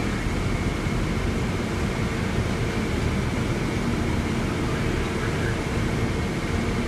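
Steady engine and cabin rumble inside an airport shuttle bus, with a faint steady whine over it.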